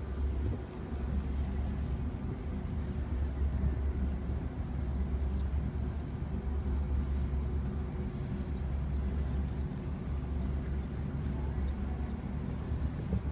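A boat engine's low, steady rumble, with a faint hum on a few higher tones.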